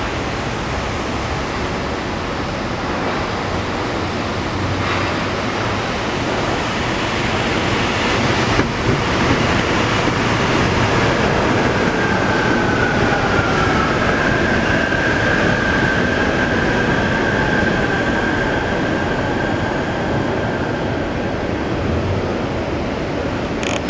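Bombardier Innovia Monorail 300 train running past on its concrete guideway with the steady rumble of its rubber tyres. A high whine comes in about halfway through, dips slightly in pitch, holds, and fades out near the end.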